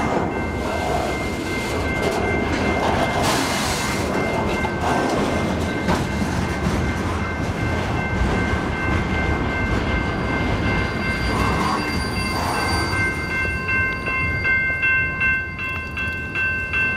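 Freight train of flatcars loaded with steel rails rolling past a level crossing, its wheels making a steady rumble, while the crossing signal's bell rings. Toward the end the train noise thins and the bell's repeated dings stand out.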